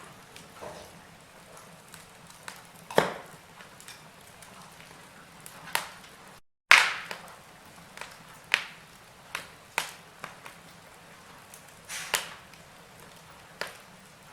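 Wood fire in a fireplace crackling: sharp pops every second or two over a soft steady hiss. The sound cuts out for a split second about halfway, and the loudest pop follows right after.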